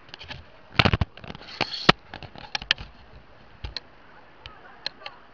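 Handling noise of a hand-held camera being turned: a dense cluster of clicks and knocks about a second in, then scattered single clicks.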